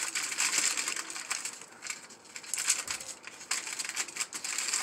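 Aluminium foil being folded and crimped by hand to seal a food packet: a run of crinkling and crackling that eases off briefly about two seconds in, then resumes.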